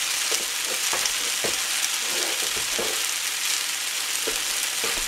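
Thick dollops of pancake batter frying in hot oil in a nonstick skillet: a steady sizzle with scattered small pops and crackles.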